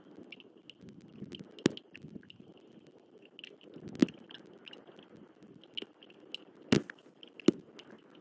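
Bald eagle tearing and crunching prey on the nest while feeding the eaglet, with wet tearing and four sharp knocks.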